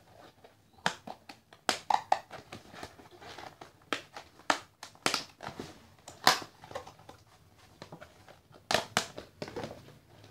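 Hands rummaging through shredded paper packing in a clear plastic tub, giving irregular rustling with sharp crinkles and crackles of paper and plastic.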